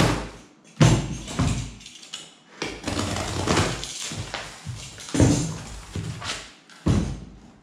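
A cardboard box being cut open with scissors and its flaps pulled apart: several sudden scrapes and rips of packing tape and cardboard. Near the end, hands rub against the foam packing inside.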